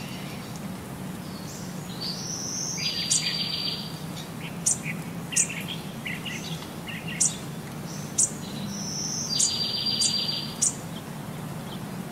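Songbird chirps and short sharp calls, with a rapid trilled phrase sung twice, over a steady low hum.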